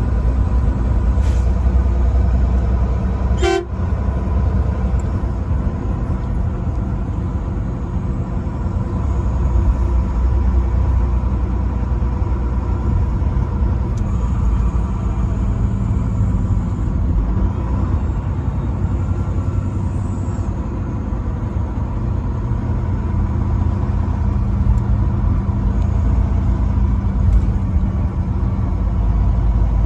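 A vehicle runs with a steady low rumble throughout, with steady horn-like tones over it and one sharp click about three and a half seconds in.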